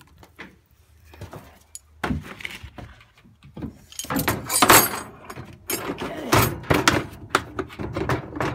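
Irregular knocks, clanks and rattling of tools and metal parts being handled, loudest about halfway through.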